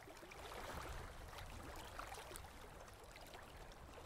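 Faint, steady trickling and gurgling of water with small crackles.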